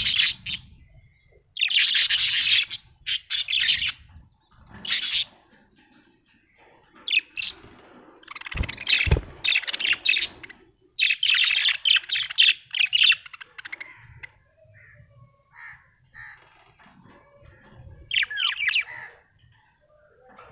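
Budgerigar chirping and warbling in bursts of rapid, high chatter, with quieter soft chirps in between. A brief low thump comes about nine seconds in.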